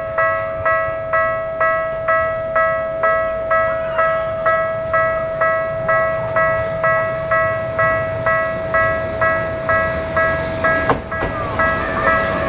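Japanese railway level-crossing warning bell ringing in a steady rhythm of a little over two strikes a second, over a continuous tone. Near the end there is a click, and the rumble of an arriving train builds up under the bell.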